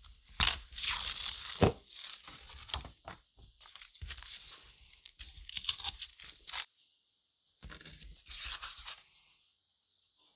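Tearing and crunching sounds in irregular strokes, a pause, then a last short run that stops about nine seconds in.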